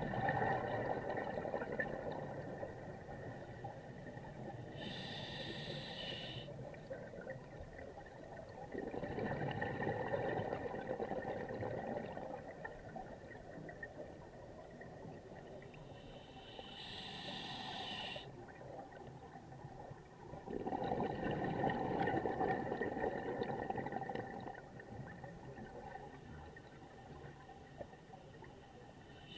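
A scuba diver breathing underwater through an open-circuit regulator: a short high hiss from the demand valve on each inhale, and a longer rush of exhaust bubbles on each exhale. The breaths are slow, about one every twelve seconds.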